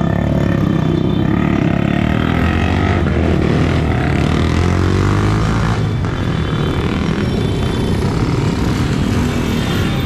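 Motor vehicle engine running steadily under loud, continuous road noise.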